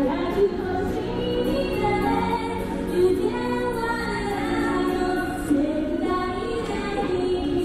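A woman singing a team cheer song into a microphone over backing music.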